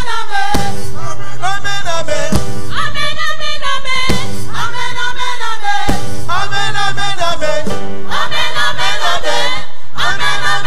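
Gospel choir singing with a live band, women's voices leading with vibrato over a steady bass. A sharp beat lands about every two seconds.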